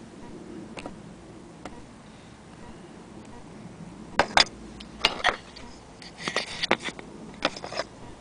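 Sharp clicks and light knocks from handling a gramophone sound box. They begin about four seconds in, come in quick pairs, with a short flurry about six seconds in.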